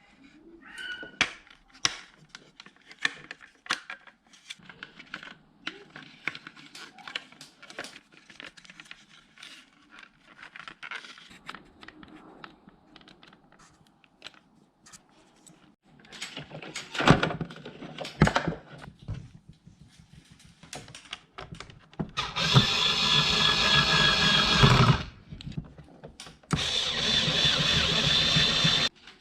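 Clicks and clatter of small parts being handled, then a small electric motor running with a steady whine twice, about three seconds each time, cutting off sharply.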